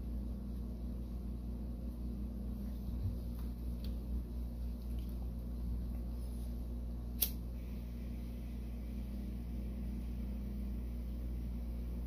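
Small clicks and rustles of wires and heat-shrink tubing being handled, with one sharper click about seven seconds in, over a steady low hum.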